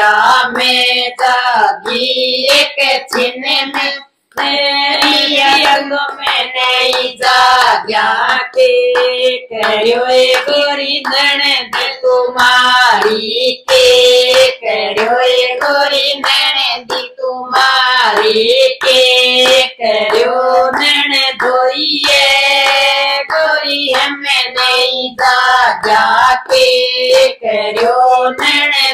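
Women singing a Haryanvi jachcha geet, a folk song for a childbirth, in a plain unaccompanied melody, keeping time with steady hand claps.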